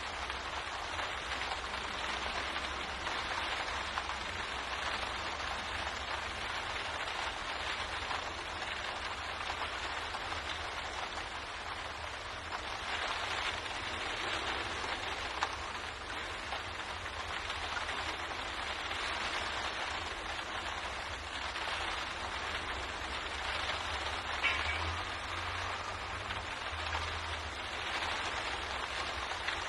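Steady rain pattering on a window pane, an even hiss with a few louder drop taps.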